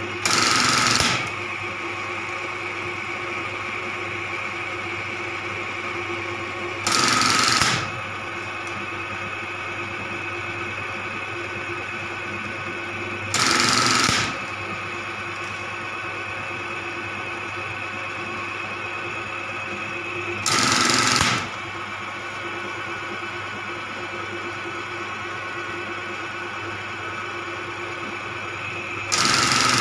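Industrial button-sewing machine being test-run after a repair: its motor hums steadily while it runs five short sewing cycles, each a loud rapid clatter lasting about a second, some seven seconds apart.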